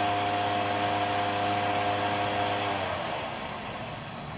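Featherweight combat robot's belt-driven spinning weapon, run by its brushless motor, spinning with a steady whine that winds down and fades about three seconds in. It sounds pretty slow: the weapon is not reaching the speed it should.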